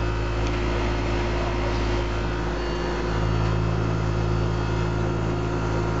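Carrier central air-conditioner outdoor condensing unit running close up: a steady hum from the compressor with the even whir of the condenser fan. Its condenser coil is wetted down with cold well water, which brings the high head pressure down and quiets the compressor.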